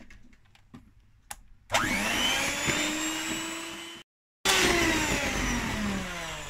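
Electric hand mixer switched on about two seconds in, its motor whining as the twin wire beaters whip the batter; a few faint clicks come before it. About four seconds in the sound cuts out for half a second, then returns with its pitch falling and fading as the mixer slows.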